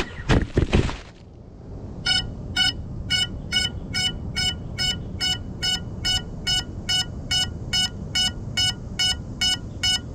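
FPV quadcopter crashing: a few sharp knocks in the first second as it strikes branches and ground. About two seconds in, the downed drone's locator beeper starts sounding a steady series of short high beeps, about two a second: the lost-model alarm signalling a crash.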